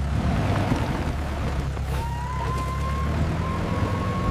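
Ambulance engine running with a steady low rumble, and a siren wail starting about two seconds in and rising slowly.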